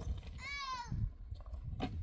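A single short, high bleat from a young herd animal, falling slightly in pitch, over a steady low rumble. A couple of small clicks follow near the end.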